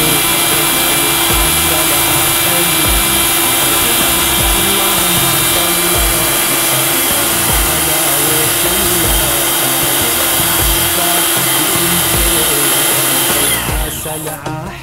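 Pressure washer running steadily, its high-pressure jet spraying water onto a carpet to rinse it. Near the end the spray stops.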